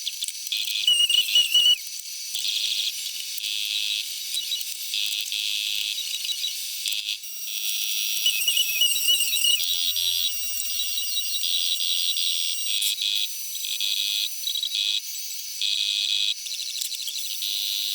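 High-pitched chirping and whistling tones over a hiss, in short irregular patches, with no low end at all. This is the sound of fast-forwarded audio, most likely from the pipe-threading work.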